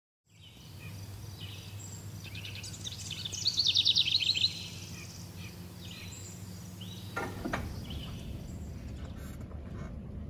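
Birdsong: a series of high chirps building into a fast, loud trill a few seconds in, then fading. A steady low hum sits underneath, and a short falling sound comes about seven seconds in.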